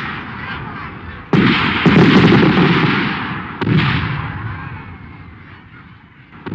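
Fireworks bursting: a series of sudden booms, about four, each trailing off in a long fading rumble and crackle.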